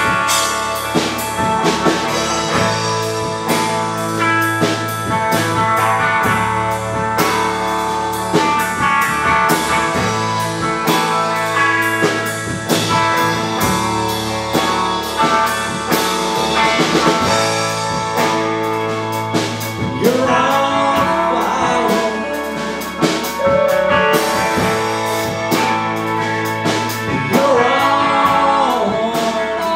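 Live rock band playing: electric guitar, bass guitar and drum kit keeping a steady beat with cymbals, and a man singing in the later part.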